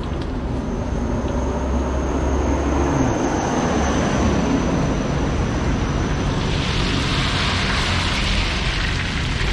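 Road traffic: a motor vehicle's engine running steadily with a low rumble, and a hiss swelling in the last few seconds.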